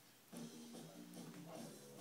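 Faint electronic toy melody from a baby's activity table, short steady notes that change pitch every fraction of a second.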